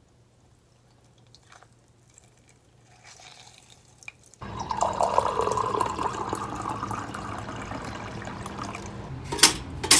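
Lemon juice dripping faintly into a ceramic mug. About halfway through, water starts pouring into the mug in a steady stream. Two sharp clicks come near the end.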